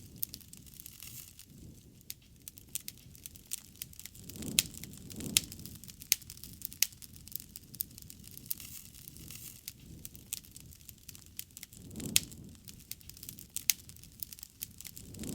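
Wood campfire burning, with irregular sharp crackles and pops over a low rumble of flames that swells a few times.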